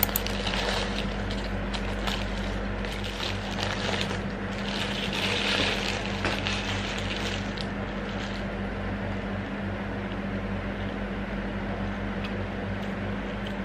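Paper shawarma wrapper crinkling and rustling as it is unwrapped and handled, over a steady low hum. The rustling stops about eight seconds in, leaving only the hum.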